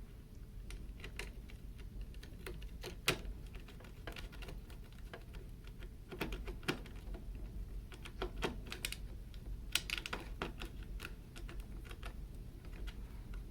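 Irregular small clicks and taps of trimmer parts being handled and fitted together while the gear housing is reassembled, with a sharper click about three seconds in and a few more around six and ten seconds in.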